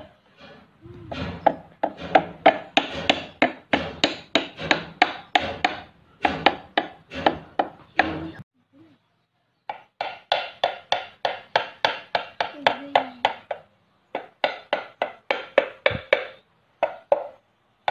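Small wooden mallet knocking the pieces of a wooden birdhouse kit together, about three sharp knocks a second, in three runs with short pauses between them.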